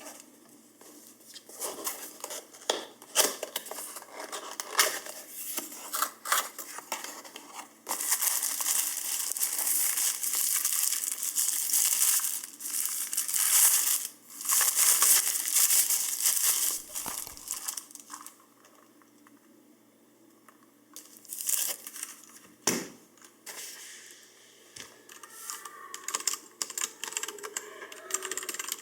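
Packaging being opened: scattered rustles and handling clicks, then about ten seconds of loud continuous crinkling and tearing of wrapping, with quieter rustling and handling near the end.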